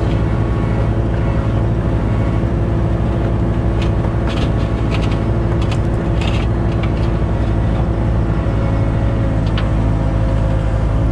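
Diesel engine of a construction machine running steadily at a constant speed, with a few short clicks and knocks over it in the middle.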